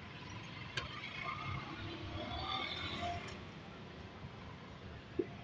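Steady background noise of a busy street food stall, with faint voices in the middle, a sharp click about a second in and a short knock near the end.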